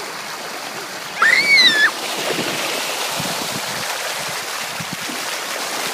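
Water rushing and splashing, with one high child's squeal that rises and falls about a second in. After that the splashing goes on, rougher and a little louder.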